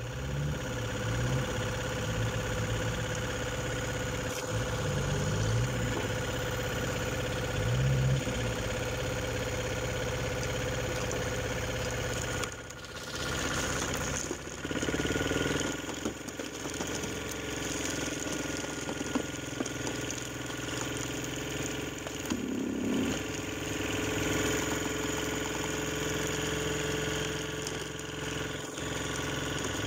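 Engine of a hydraulic log-splitting machine running steadily under load as it works through a large log, with a brief drop in sound about twelve seconds in.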